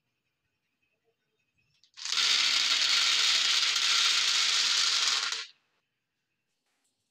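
Hundreds of small hard mango qulfa candies poured out of a bowl into a plastic tray, making a dense clattering rattle. It starts about two seconds in, lasts about three and a half seconds and stops sharply.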